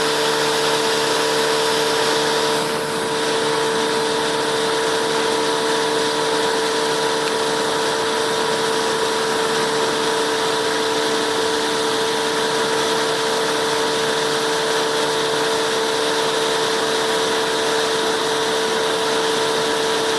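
Amazon passenger riverboat's engine running steadily, a constant hum with a steady whine at an unchanging pitch over a broad rushing noise.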